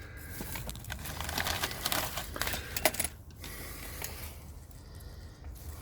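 Rapid clicking and rattling for about three seconds, with one sharper click near the end of it, then quieter.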